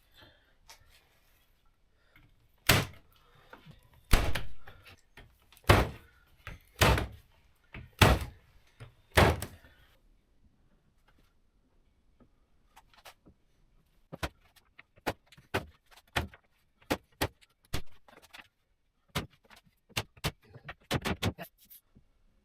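Six heavy knocks about a second apart, then, after a pause, a run of lighter, quicker taps and clicks.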